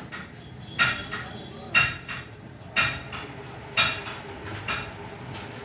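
Cloth rubbing inside a T-Eagle rifle scope's lens housing as the lens is wiped clean of dirt: five short, sharp rubbing strokes about a second apart.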